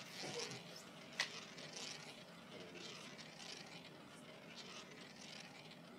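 Ball running around the track of a spinning roulette wheel: a faint, steady whirr, with one sharp click about a second in.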